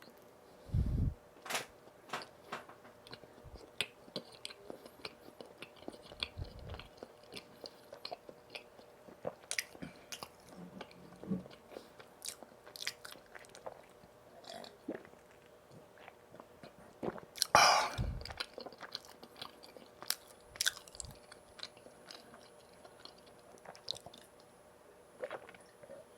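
Close-miked eating of donuts: bites and chewing with many short, wet mouth clicks. A louder bite or crunch comes about two-thirds of the way through, and there are a couple of low thumps near the start.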